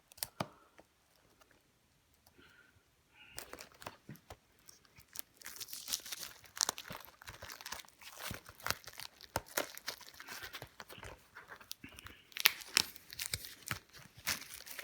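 Plastic shrink-wrap being torn and crinkled off a Blu-ray set's packaging. A few crackles come at first, then after about three seconds a dense stretch of crackling and rustling.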